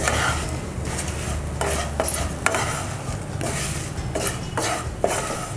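Spatula stirring raw banana slices and gram flour in a frying pan, with repeated scraping strokes against the pan over a light sizzle of frying.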